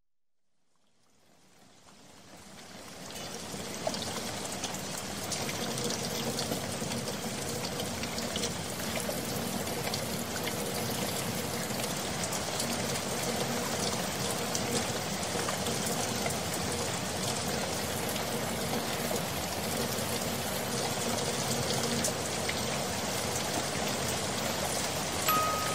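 Steady rain falling, fading in over the first few seconds and then holding even; a few chime-like music notes come in right at the end.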